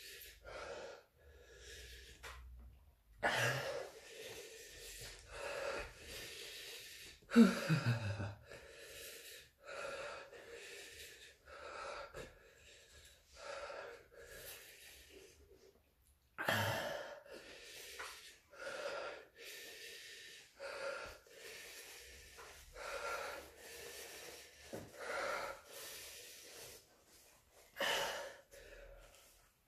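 A man breathing hard through his open mouth, drawing and blowing out one rasping breath after another against the burn of hot chili peppers. About seven seconds in there is a short moan that falls in pitch.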